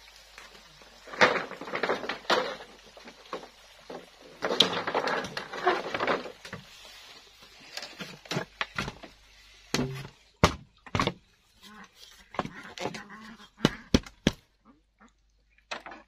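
Long bamboo poles knocking and scraping against each other and against bamboo posts as they are lifted and fitted into a frame: rustling, scraping stretches, then a run of sharp hollow knocks in the second half.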